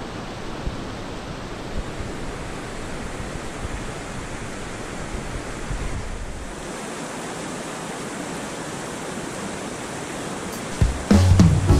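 Steady rush of a mountain stream's flowing water. Background music comes in near the end.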